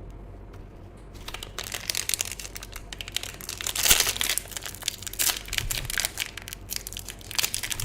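Plastic packaging being crinkled and crumpled by hand, a dense irregular crackle that starts about a second in and peaks near the middle.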